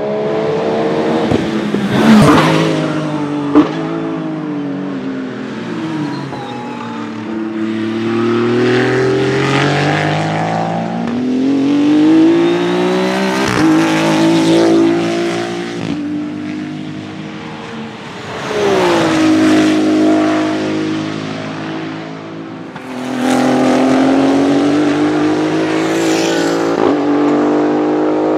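Maserati MCXtrema's twin-turbo 3.0-litre V6 at full throttle on track: several rising runs of engine pitch, each cut by a sudden drop at an upshift. Two sharp cracks from the exhaust come a couple of seconds in, the second the loudest moment.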